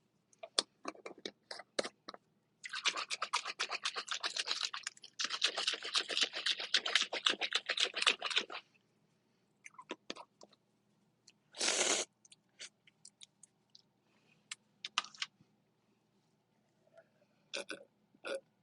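Crunching and scraping sounds of eating and handling food close to the microphone: a dense run of rapid crackling clicks for several seconds, then scattered single clicks and a short hiss.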